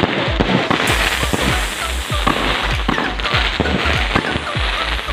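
Fireworks barrage going off in quick succession: sharp bangs several a second over continuous crackling, with music playing underneath.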